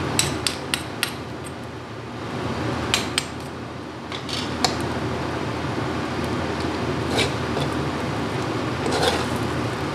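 Metal spatula scraping and clinking against an aluminium wok as fried rice is stirred and turned. There is a quick run of sharp clinks at the start and a few more about three and four and a half seconds in, over a steady low background hum.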